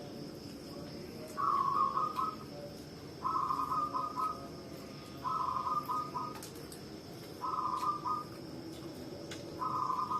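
A bird calling repeatedly: five similar short phrases, each a little under a second long, about two seconds apart. A steady high insect drone runs underneath.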